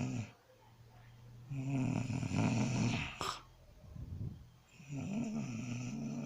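Snoring: one snore ends just at the start, then two long snores follow about three seconds apart, with a brief click between them and faint breathing in the pauses.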